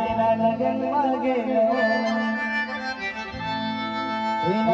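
Live Adivasi timli band music: a held, sliding keyboard melody over a steady low drone, with the band's drums.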